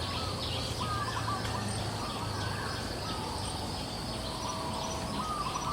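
Birds calling in short repeated chirping phrases over a steady high insect drone.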